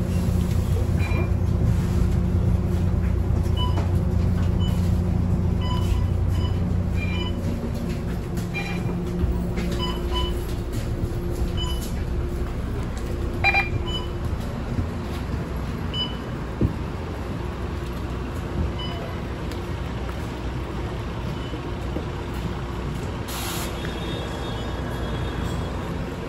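Volvo B9TL double-decker bus's Volvo D9B 9.4-litre diesel engine running with a steady low hum that drops away after about eight seconds as the bus eases off. A short air hiss sounds near the end.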